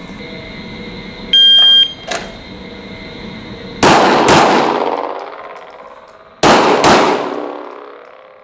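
A shot timer gives one steady electronic start beep, then a Glock 17 9mm pistol fires two quick pairs of shots about two and a half seconds apart. Each pair rings out and dies away slowly in the echo of the indoor range.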